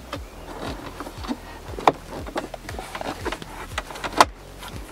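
Plastic dashboard trim and the screen mounting bracket being handled and pressed into place: a run of light clicks and knocks, with two sharper knocks about two and four seconds in.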